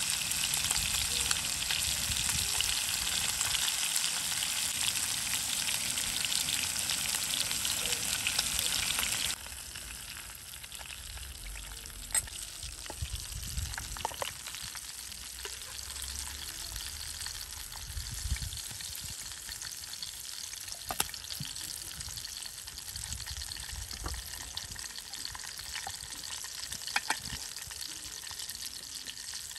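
Food frying in hot oil in a pan: a loud, even sizzle that drops suddenly to a quieter sizzle about nine seconds in, with a few light clicks and taps after that.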